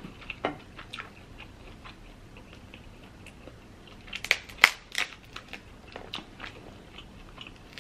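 King crab leg shells cracked and snapped apart by hand, with a quick run of sharp cracks about four seconds in and scattered faint clicks of shell around it.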